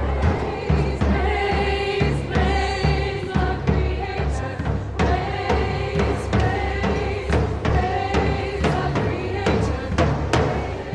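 Choral music: a choir singing held notes over steady drum strikes and a low bass layer.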